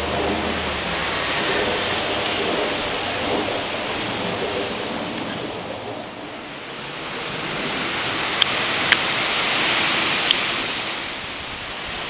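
Strong wind gusting through birch and pine trees: a loud rushing rustle of leaves and branches. It eases about six seconds in, builds again, and eases near the end. A few short sharp clicks sound about eight to ten seconds in.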